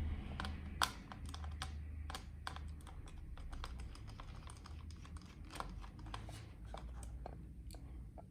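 Light, irregular plastic clicks and taps, a few a second, from a Lenovo T440s laptop being handled, over a steady low hum.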